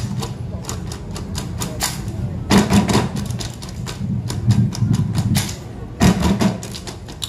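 Seated dancers of an Acehnese ratoh duek dance clapping their hands and slapping their bodies in unison, rapid sharp claps in quick bursts with short pauses between them.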